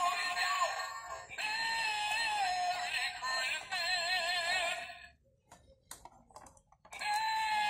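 Animated Santa toy's built-in speaker playing an electronic saxophone melody with a wavering vibrato. The tune stops about five seconds in, a few clicks follow as the toy is handled, and the melody starts again near the end.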